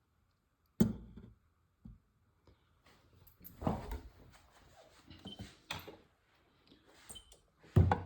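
Clicks, knocks and a brief clatter of a plastic capsule ball and a drop-timing rig being handled and set off, with the loudest knock near the end.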